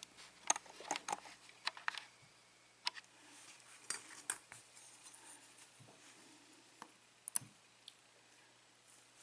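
Light metallic clicks and ticks of tiny lock pins being handled and set down while a disassembled euro cylinder's pins are sorted. The ticks come irregularly, most of them in the first two seconds, then only a few scattered ones.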